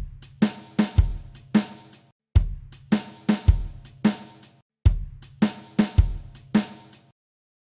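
Background music with a drum-kit beat, kick drum, cymbals and a bass line, cutting off abruptly about seven seconds in.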